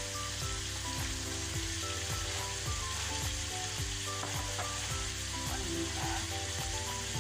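Diced tomatoes and onions sizzling steadily in a frying pan, with a sauce just added and a wooden spoon stirring now and then. Background music with a steady beat plays underneath.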